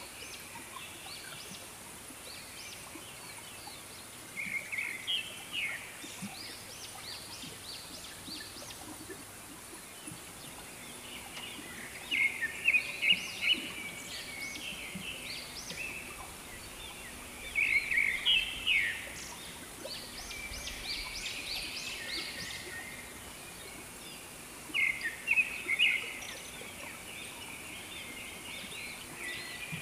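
Birds calling in repeated bursts of rapid, sharp notes, four times, with quieter background between the bursts.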